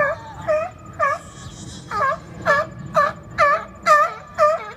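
Seals calling in a quick series of short, wailing yelps, about two a second, each dipping and rising in pitch, with a brief pause a little over a second in. The calls come from a squabble over a resting spot.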